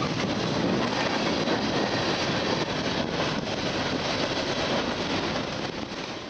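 Freight cars of a passing Norfolk Southern train rolling by close at speed: a steady rumble and rush of steel wheels on the rails, with a few clacks about three seconds in. The sound fades out near the end.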